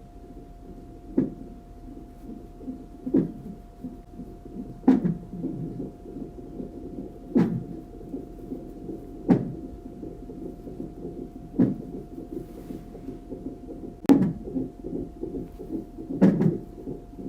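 Fetal Doppler monitor's speaker giving a steady low whooshing with a faint constant hum, broken about every two seconds by a sharp thump, eight in all: the unborn baby hiccuping.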